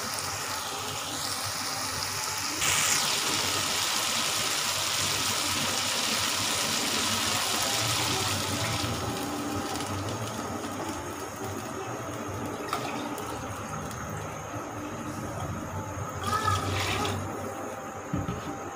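Water poured from a bottle into a hot pan of fried masala and meatballs, the splashing pour loudest in its first seconds and stopping about nine seconds in. After that the water in the pan goes on with a quieter bubbling, with a brief louder splash near the end. This is the stage where water is added once the masala has released its oil, ready for the rice.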